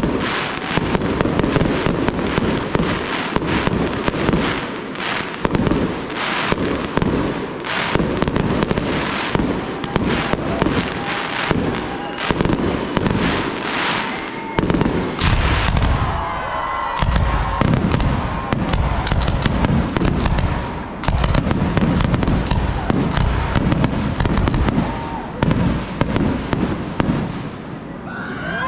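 Aerial fireworks shells launching and bursting in rapid succession, one bang on top of the next, with a continuous crackle from crackling stars.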